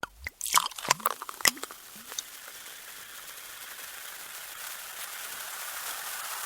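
Champagne: a short flurry of sharp pops, splashes and gurgles over the first two seconds, then a steady hiss of fizzing bubbles that slowly grows louder.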